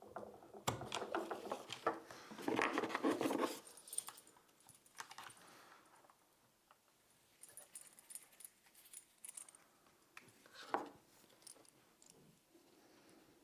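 Hands handling an unboxed speaker's accessories and packaging: rustling and clicking, with a few light metallic clinks. It is busiest and loudest over the first few seconds, then thins to scattered clicks and rustles.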